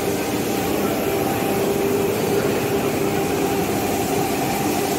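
Motor-driven locomotive lifting jacks humming steadily as they raise the locomotive body off its bogies. The hum is a continuous drone with a low steady tone and no change in level.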